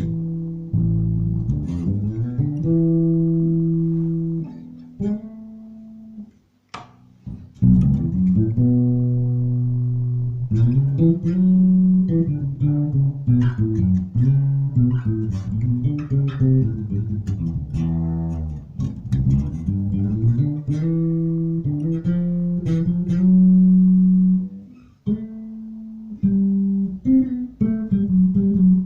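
Maruszczyk Elwood X5 five-string electric bass guitar played solo: plucked notes and runs, some sliding in pitch, with a short pause about six seconds in and another about 25 seconds in.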